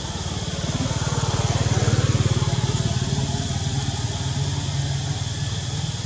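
A small engine running steadily with a fast, even pulse, louder about two seconds in and then easing off.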